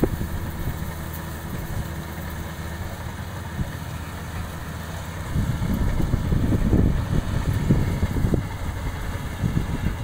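Rice combine harvester's engine running steadily at a distance while harvesting, a constant mechanical hum. Irregular low rumbles join in about halfway through.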